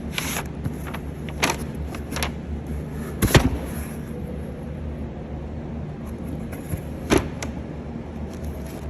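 Cardboard box being opened by hand, with scattered scrapes and knocks of cardboard and packing, the loudest a little over three seconds in. A steady low hum runs underneath.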